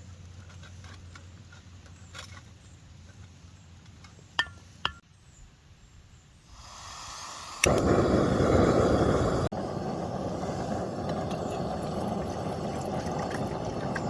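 Two sharp clicks, then a camping stove burner hissing as gas flows and catching with a loud rush. It settles to a steady burning rush, heating water for a brew.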